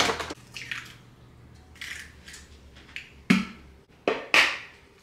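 Eggs being cracked: sharp knocks of eggshell on a hard edge, the loudest a little past three seconds in and twice more just after four, with softer small sounds between.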